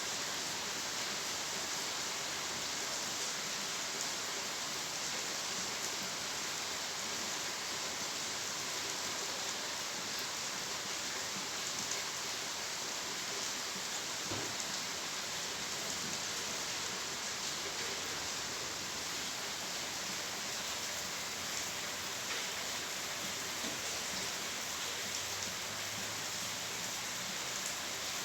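Steady rain falling without thunder, an even hiss with many small drop patters.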